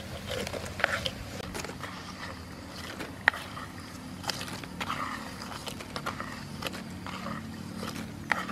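Wooden spatula scraping and tapping against a metal wok, with scattered clicks and rustles as crisp fried banana slices are handled; one sharp tap about three seconds in.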